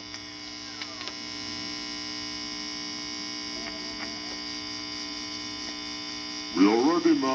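Steady mains hum and buzz from an ungrounded turntable and workbench amplifier, a ground-loop hum under the record's playback, with a few faint clicks. A recorded voice comes in near the end.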